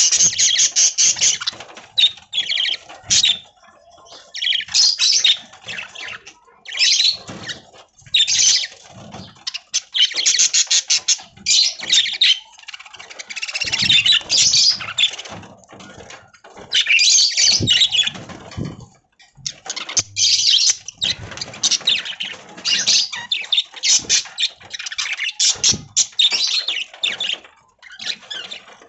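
Budgies chirping and chattering in quick, high bursts, with brief pauses between bouts.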